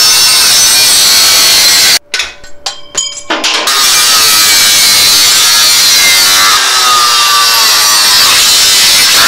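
Cordless Milwaukee angle grinder with a cutoff disc cutting through steel frame tubing: a loud, harsh grinding with a wavering whine. It stops abruptly about two seconds in, then starts cutting again a second or so later and runs on steadily.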